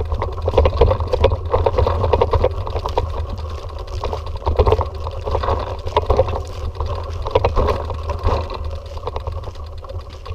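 Bicycle on the move, rattling and clicking irregularly, with a steady low rumble underneath.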